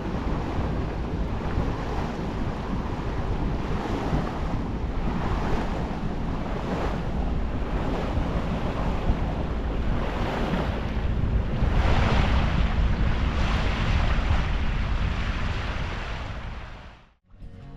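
Wind buffeting the microphone over the rush of waves and water on a sailboat under way, swelling every second or two, then fading out near the end.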